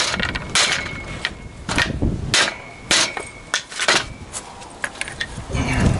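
Claw hammer striking a birch multiplex (plywood) catapult frame clamped in a workbench, about eight hard blows roughly every 0.6 s over the first four seconds, several with a short metallic ring. The frame holds without splitting, and a few lighter knocks follow as the hammer is set down.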